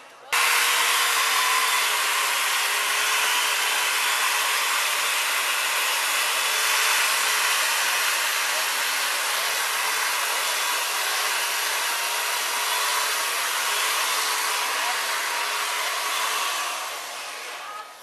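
Chainsaw cutting into a large block of ice, running steadily at full speed with a high, hissing cut. It starts abruptly just after the beginning and tails off near the end.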